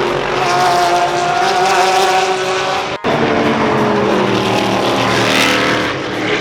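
Race car engines running loud at speed on a street circuit, their pitch sliding up and down as the cars pass. The sound breaks off abruptly about three seconds in, then more cars are heard.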